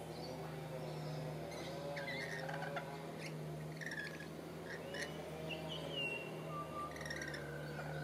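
Birds chirping and whistling in short, scattered high calls, some sliding in pitch, over a steady low hum.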